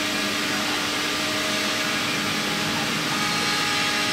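Small 5-axis CNC router running steadily while carving a bust: a constant spindle whine with several steady tones under an even cutting hiss.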